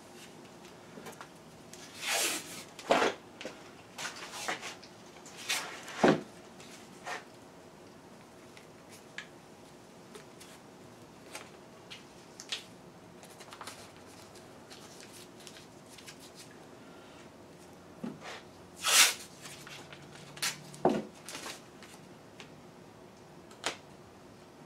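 Hands handling tools and parts at a workbench: scattered knocks, clicks and short scrapes, the loudest a few seconds in, about six seconds in, and near 19 and 21 seconds. A faint steady hum runs beneath.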